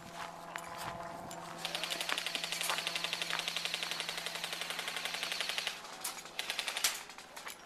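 Airsoft gun firing a long full-auto burst of about four seconds, a rapid, even rattle of shots. Scattered single pops come before and after it.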